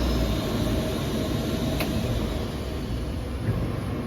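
SUDA CNC router running on foam board: a steady whir and rush of noise over a low rumble, with one sharp click a little under two seconds in.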